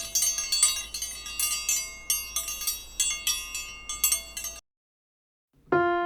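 High, tinkling chimes struck many times in quick, uneven succession, the notes ringing over one another, stopping about four and a half seconds in. After about a second of silence, a held keyboard-like note begins near the end.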